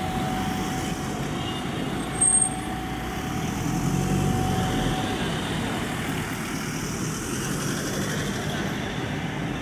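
Police tow truck's engine running as it moves slowly, amid the noise of a large crowd. A faint steady tone runs through the first half, and a short, very high-pitched squeak comes about two seconds in.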